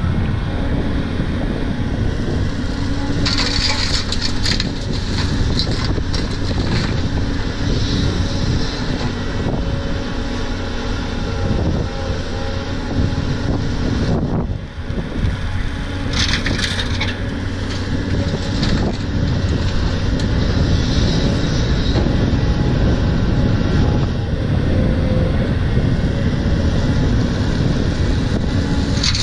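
Cat 320 hydraulic excavator's diesel engine working under load as it digs and swings, with several bursts of laterite gravel rushing and clattering into a steel dump-truck bed as the bucket empties.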